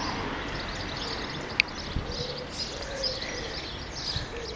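Small birds chirping in many short high notes, with a few soft low coos from a pigeon. One sharp click about a second and a half in.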